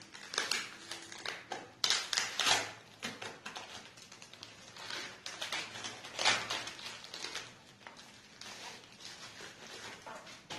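Plastic air-cushion packaging crinkling and rustling in irregular bursts as a laptop battery is handled and unwrapped.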